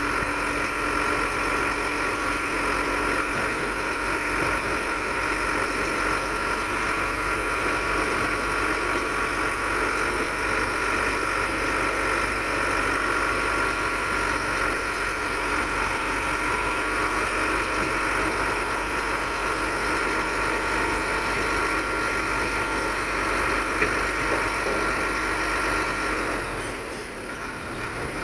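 Diesel engine of earthmoving machinery running steadily, with a steady high whine over it. It eases off slightly near the end.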